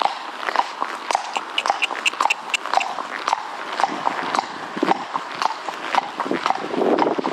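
Highland pony's hooves clip-clopping at a walk on a hard road, a couple of knocks a second. A rushing noise builds near the end.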